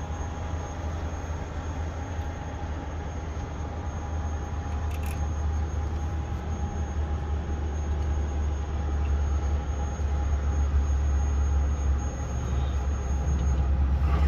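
Steady low rumble of a running engine or machine, with a faint steady whine over it, growing somewhat louder in the second half.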